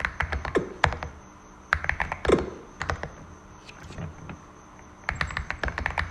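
Typing on a Cidoo V65 mechanical keyboard with Glorious Panda tactile switches, foam-dampened and tape-modded: a quick run of keystrokes, then a pause broken by a few single heavier key strikes, then fast typing again about five seconds in.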